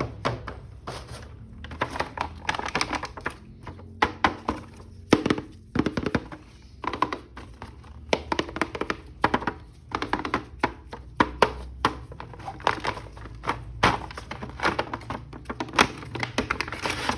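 Irregular plastic clicks, taps and knocks of a toy action figure and its plastic packaging being handled and opened.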